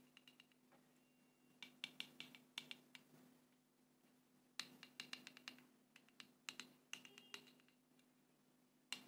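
Faint scratchy clicking of a palette knife working on watercolour paper, in short quick clusters about every second or two, over a low steady hum.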